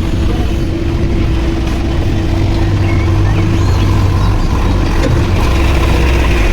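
Diesel engine of heavy earthmoving machinery, a backhoe loader or tractor at work, running as a steady low drone that grows a little louder partway through.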